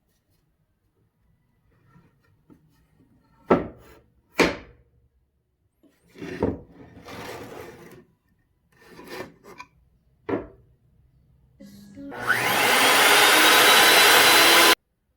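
Woodworking sounds: two sharp knocks of wood, some scraping and rubbing, then about twelve seconds in a power tool spins up with a rising whine and runs loudly before cutting off suddenly.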